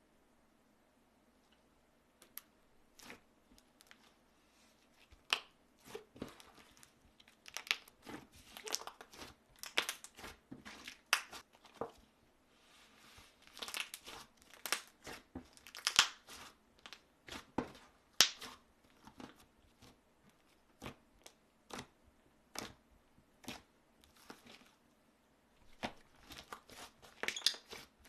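Slime being pressed and stretched by hand: irregular crackles, pops and crunches, starting about two seconds in.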